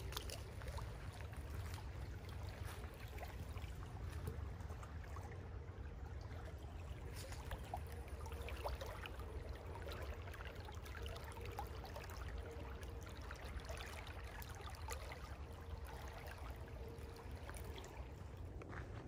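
Small shallow creek running over its bed, a steady trickling babble with many small splashes, over a low rumble.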